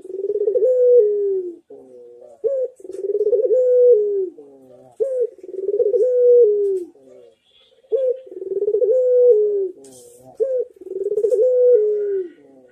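A ringneck (Barbary) dove cooing in its full 'manggung' song, five times at about two-and-a-half-second intervals. Each coo is a short rising note followed by a longer, rapidly pulsing coo that drops in pitch at the end.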